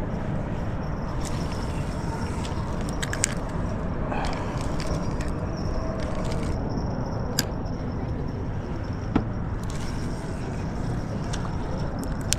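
Spinning reel being cast and reeled in, with a few sharp clicks from the bail and handle over a steady low rumble.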